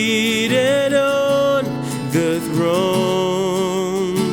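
A solo voice holding two long wavering notes in a slow worship song, over a strummed acoustic-electric guitar.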